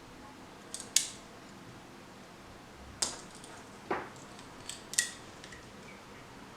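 NOKS Romul butterfly knife (balisong) being handled, its latch and handles giving a series of sharp metal clicks and clacks, about six spread over several seconds.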